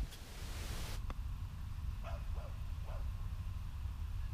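Low rumble of outdoor air and wind on the microphone, with a brief hiss in the first second and three faint, short, distant calls about two to three seconds in.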